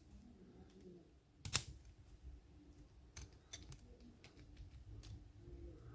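A key being pushed into a small brass padlock and worked in the keyway: faint scrapes and light metal clicks, one sharper click about a second and a half in. The key does not work the lock.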